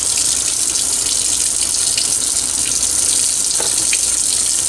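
Kitchen faucet running in a steady stream into the sink, splashing over a dressed squirrel carcass turned over in the hands as it is rinsed.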